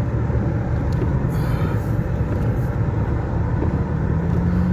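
Steady rush of wind on the microphone mixed with the running noise of an e-bike riding through a snowstorm, with a low steady hum coming in near the end.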